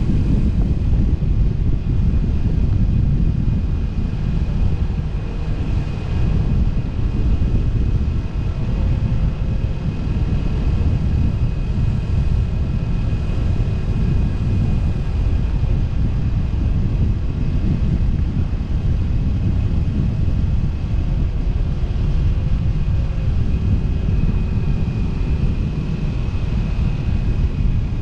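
Motorcycle cruising at a steady speed, its engine running evenly beneath a heavy rush of wind on the microphone.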